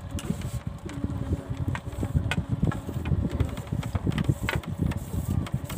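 Wind buffeting the microphone: an uneven low rumble throughout, with a faint steady drone beneath and a few light clicks.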